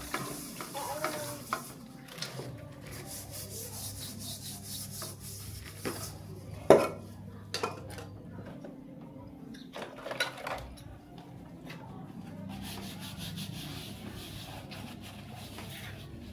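Dishes washed by hand: a sponge scrubbing metal pans and bowls, with scattered clinks and knocks of the pots. One loud clank comes near the middle.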